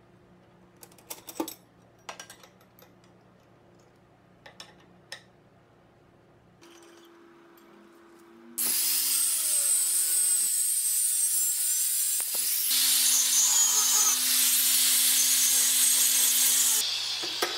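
Angle grinder cutting steel: a loud, steady, hissing whine that starts about halfway in and runs several seconds, easing off near the end. Before it there are a few light metallic clicks of brackets being handled.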